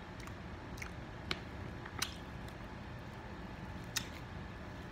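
Metal spoon clinking and scraping against a plate while scooping omelet, with a few sharp clinks, the clearest about two and four seconds in. Chewing sounds between them.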